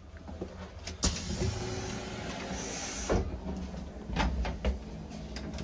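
Railway coach doors being worked at the vestibule, over a low rumble. A loud clunk comes about a second in, then a short hiss and a second clunk just past the middle, and a couple of lighter knocks later.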